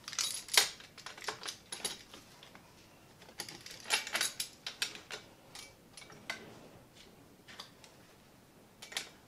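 Irregular metallic clicks and clinks of a hand tool working the handlebar stem bolt of a small steel bike, coming in short clusters with gaps between.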